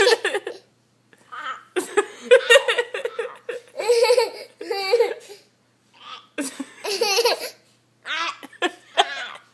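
Laughter, a toddler's among it, in about five short fits with brief pauses between.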